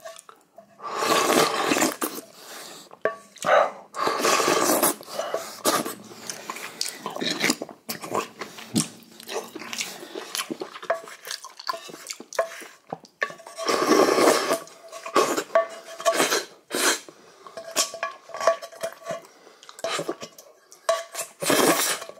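Eating sounds over a bowl of seaweed soup: a spoon clinking and scraping against the bowl, with a few louder stretches of slurping broth, each a second or two long.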